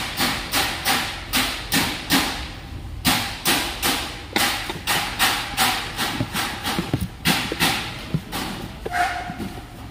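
A steady run of sharp thuds at an even pace, about three a second.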